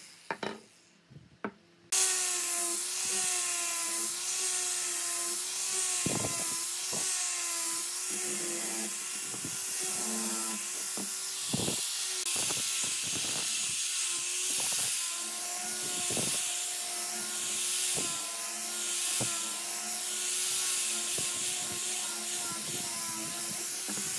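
Angle grinder with a sanding pad sanding a curved pine block: a steady motor whine over the hiss of abrasive on wood, its pitch wavering slightly as the pad is pressed and moved. It comes in abruptly about two seconds in, after a nearly quiet moment with a few light knocks.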